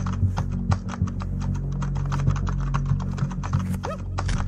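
Fast, uneven computer-keyboard typing, many clicks a second, over a steady low hum.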